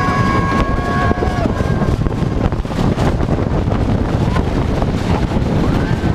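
Wooden roller coaster train racing down a drop and through turns: loud wind rush on the microphone over the rumble and clatter of the wheels on the wooden track. During the first second and a half, riders' high-pitched screams are held at a steady pitch before the noise of the ride takes over.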